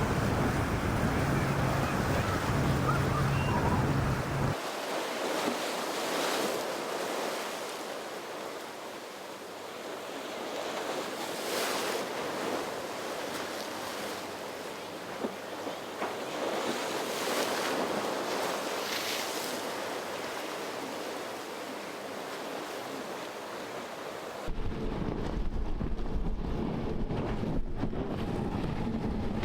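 Waves and surf rushing, with wind buffeting the microphone. A boat engine hums steadily for the first four seconds or so, and the sound changes abruptly twice, at about four and a half seconds and near the end.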